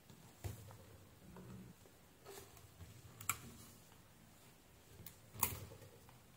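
Handling noise on a workbench: about five light clicks and taps, spread over a few seconds and loudest about three seconds in and near the end, with faint rustle between them.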